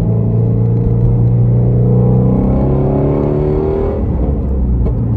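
Shelby Mustang's V8 engine heard from inside the cabin, accelerating with its note rising steadily for about four seconds, then levelling off.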